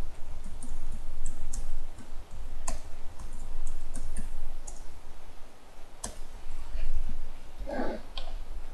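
Typing on a computer keyboard: irregular, uneven key clicks over a steady low rumble.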